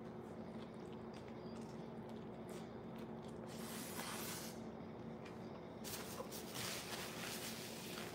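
Close-miked chewing of a mouthful of loaded deli-meat sandwich on a soft bun, with wet mouth and squishing sounds. These grow louder about four seconds in and again from about six seconds in, over a steady low hum.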